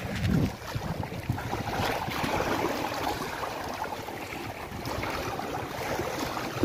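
Wind rumbling on the microphone over the steady wash of small sea waves lapping at the shore.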